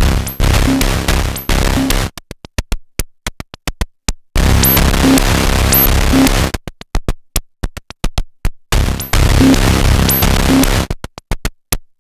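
Moog DFAM analog percussion synthesizer playing a sequenced pattern. Loud, dense, noisy drum hits alternate with runs of sharp clicks, the cycle repeating about every four and a half seconds.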